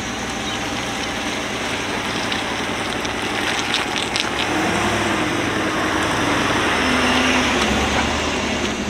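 Ford F-150 pickup driving slowly past close by, engine running with tyres hissing on wet pavement. It grows louder as the truck nears.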